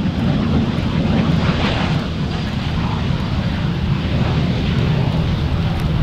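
A Panavia Tornado's twin Turbo-Union RB199 turbofans running at high power with the thrust reversers deployed, braking the jet on its landing roll: a loud, steady jet rumble.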